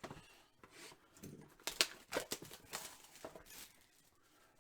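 Trading cards and their packaging being handled: an irregular run of clicks, taps and rustles, the loudest a sharp click just under two seconds in.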